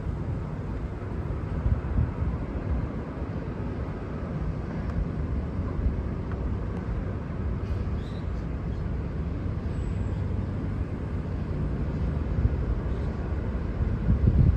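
Steady low vehicle rumble with no horn.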